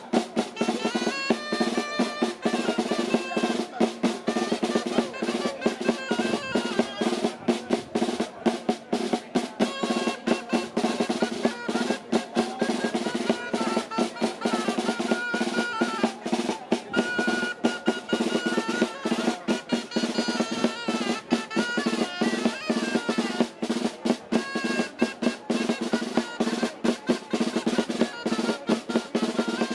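Music: a snare drum played in rolls and steady beats, under a melody carried over a steady low drone.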